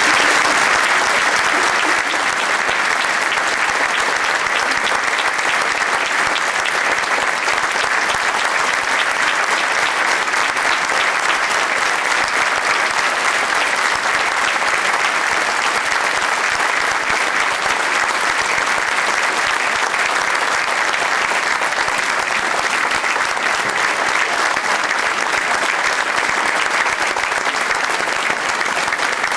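Large theatre audience applauding steadily, a long, unbroken round of clapping greeting a performer's entrance.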